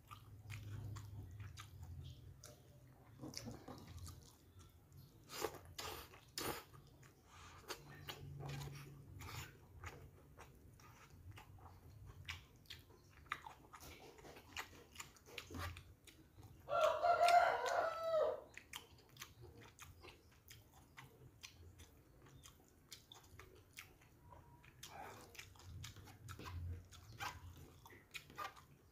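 Close mouth sounds of a man eating noodles, rice and fried fish: chewing and lip smacks in many small clicks. About halfway through a rooster crows once, the loudest sound, lasting under two seconds.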